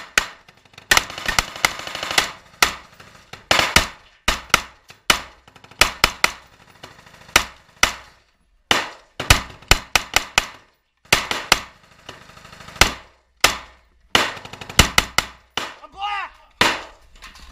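Live gunfire: repeated short bursts and single shots from a military weapon fired out of the window of a wooden shack, with gaps of a second or so between groups.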